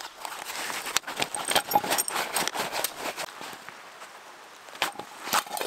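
Rustling and light clinking of camp gear and food being handled, dense over the first three seconds, then a few sharp knocks near the end.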